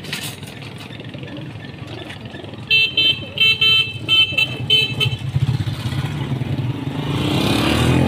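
A vehicle horn honks about six times in quick short blasts, then a vehicle's engine rumbles louder and rises in pitch as it passes close by.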